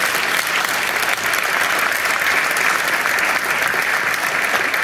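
Audience applauding: dense, steady clapping from a full hall.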